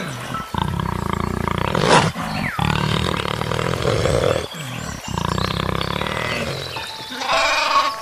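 Leopards growling and snarling in a run of long, rough growls with short breaks, as they play-fight. A goat bleats briefly near the end.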